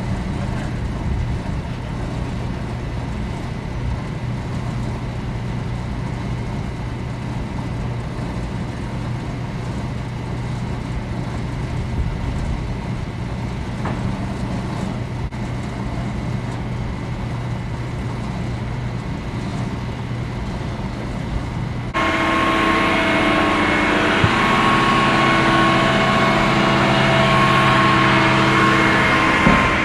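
Crane truck's engine running steadily. About 22 seconds in it becomes suddenly louder and closer, with a steady whine over the engine.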